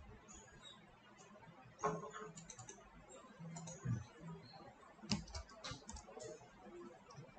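Computer keyboard keystrokes, faint and in a few short scattered clusters, with pauses between.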